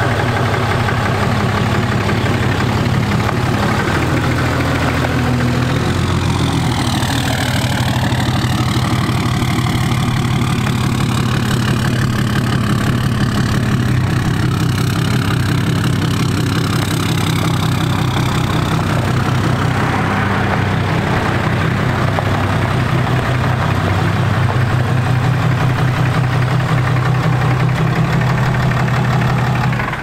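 Ram heavy-duty pickup truck's engine idling steadily.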